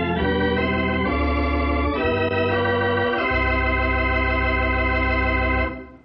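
Organ music bridge between scenes of a radio drama: a short run of held chords that change a few times, then settle on one long final chord that cuts off shortly before the end.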